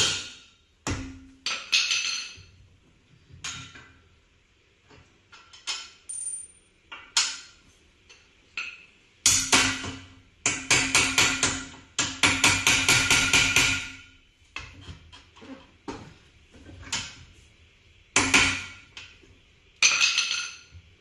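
Hammer tapping a metal bolt back into its hole: sharp metallic strikes with a short ringing tone, some single and some in quick runs, with a long rapid run of about four blows a second from about nine to fourteen seconds in.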